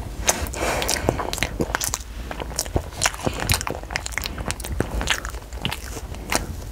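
A child biting and chewing a soft yellow jelly ball close to a clip-on mic: a steady run of small mouth clicks and crackles.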